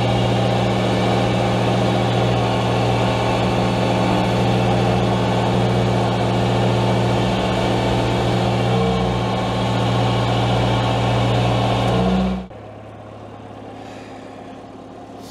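Compact loader's engine running steadily while driving a hydraulic sweeper-collector attachment that is gathering fallen leaves. About twelve seconds in, the sound drops suddenly to a much quieter low hum.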